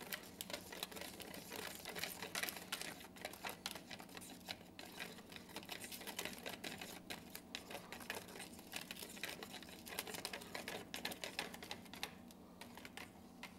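A screwdriver stirring fiberglass resin in a small plastic tub: rapid, irregular ticking and scraping of the metal blade against the tub, thinning out near the end.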